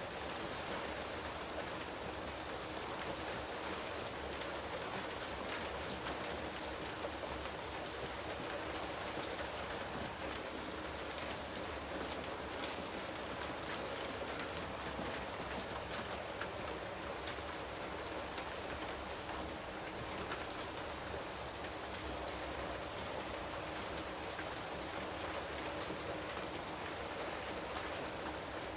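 Steady rain falling on foliage and surfaces, a dense even hiss scattered with individual drop ticks.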